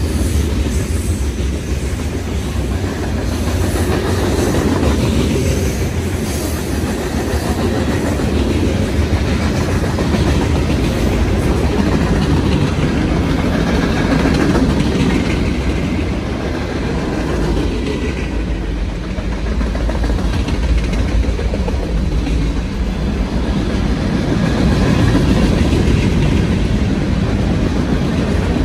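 Norfolk Southern mixed freight train rolling past close by: a steady rumble of boxcar, covered-hopper and tank-car wheels on the rails.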